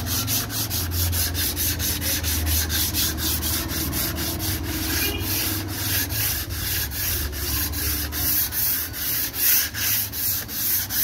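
Dry hand-sanding of hardened body filler on a car door panel with sandpaper on a sanding block, in rapid back-and-forth scratchy strokes, about four a second, becoming slower and longer near the end.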